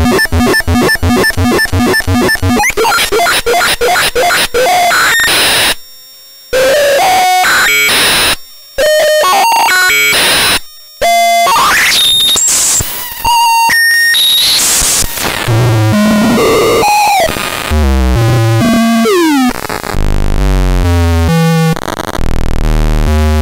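Homemade circuit-bent noise sequencer synth playing harsh chiptune-style noise. It opens with a rapid even pulsing, breaks into glitchy bleeps and noise that cut out suddenly several times and swoop up and down in pitch, and near the end settles into a stepping sequence of low notes.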